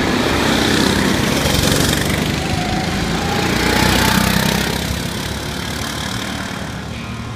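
Go-kart engines running at speed as the karts pass close by, loudest as one passes about four seconds in, then fading as they move away.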